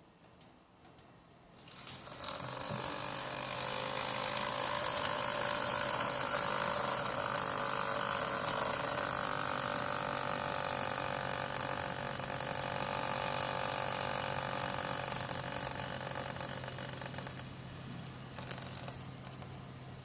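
Antec Kühler 620 liquid CPU cooler pump making a weird mechanical noise that comes in about two seconds in, holds, and fades out near the end. The noise changes with the system's orientation and went away once the radiator was mounted with its tubes at the bottom.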